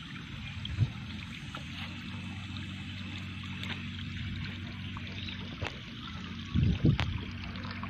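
Liquid insecticide trickling from a small bottle into the strainer of a stainless-steel knapsack sprayer tank, over a steady low hum. There is a knock about a second in and a few louder knocks near the end.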